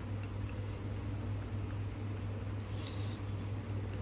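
Steady low hum of room background with faint, regular ticking several times a second; the spice pouring onto yogurt makes no plain sound of its own.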